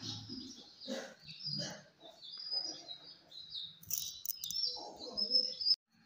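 Rose-ringed parakeet chirping, a run of short high chirps with some lower chatter, cutting off suddenly near the end.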